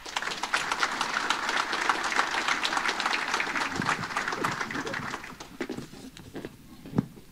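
Audience applauding, the clapping dying away after about five seconds.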